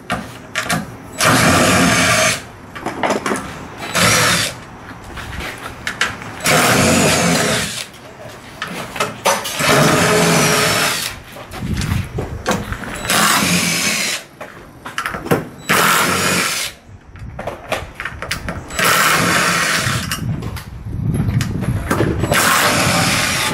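Power driver with a number 3 Phillips bit spinning screws out of a bus body rib. It runs in short bursts of about a second each, over and over, with pauses between them.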